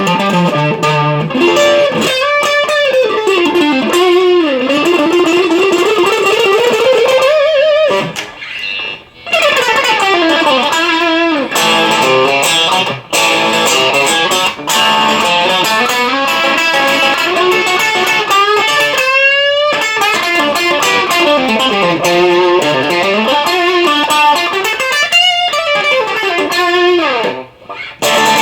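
Electric guitar played through a Marshall DSL1 tube amp with overdrive pedals, in a continuous lead passage full of wide pitch slides and sweeps up and down. It breaks off briefly twice.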